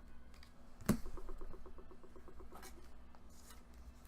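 Trading cards being handled: a sharp tap about a second in, then a quick run of soft ticks lasting about two seconds, over a steady low hum.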